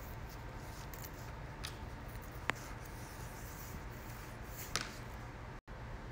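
A cloth rubbing over a polyurethane quarter-window louver as it is wiped clean: faint rubbing with a couple of light clicks, over a low steady hum.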